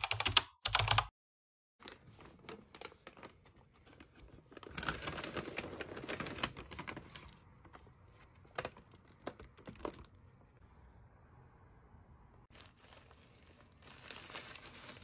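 Dry puppy kibble being scooped and crushed in a plastic zip-top bag: scattered crunchy clicks, with a louder stretch of crunching and bag rustling in the middle and again near the end. Two short loud sounds open it.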